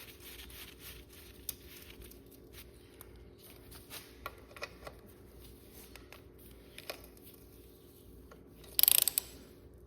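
Ratchet wrench turning the frame drain bolt of a 2006 Yamaha WR450F, with scattered faint clicks of the pawl. A loud run of rapid clicking comes about nine seconds in.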